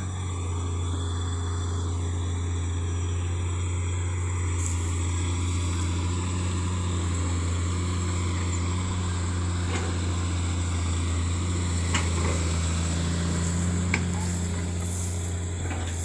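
Excavator's diesel engine running steadily with a low, even hum, with a couple of light knocks in the second half. The machine is running normally after repair following more than a month submerged in water.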